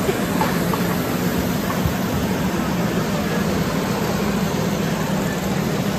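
Steady exhibition-hall background noise with a low, even hum underneath and faint snatches of distant voices.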